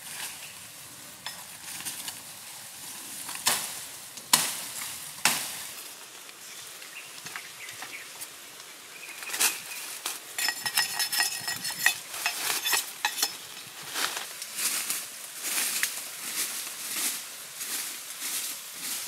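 Dry bamboo leaves and stems rustling and crackling as they are pushed through and handled, with three sharp snaps a few seconds in. From about ten seconds in, a denser run of irregular crackling, like footsteps on dry leaf litter.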